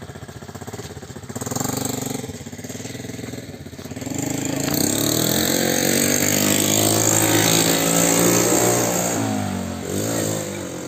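Lifan 6.5 hp single-cylinder four-stroke engine of a homemade tractor revving briefly, then revving up hard from about four seconds in, held for several seconds and easing off near the end.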